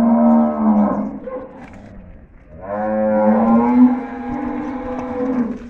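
Cattle mooing: two long, pitched moos, a short one at the start and a longer one about two and a half seconds in.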